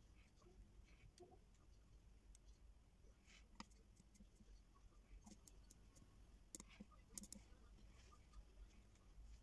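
Near silence: faint room tone with scattered small clicks of buttons being pressed on a handheld oscilloscope and circuit board, a few sharper clicks about three and a half, six and a half and seven seconds in.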